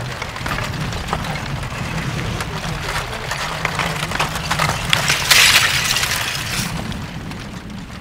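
Front of a blocky lava flow clinking and cracking as its cooled crust breaks and chunks tumble off. Many small sharp cracks come one after another, with a louder crumbling rush about five seconds in. A low steady hum runs underneath.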